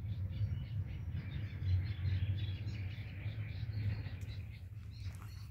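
Wind noise on the microphone, with birds chirping.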